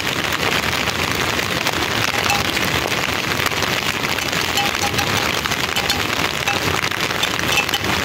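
Steady rain falling, an even hiss of many drops.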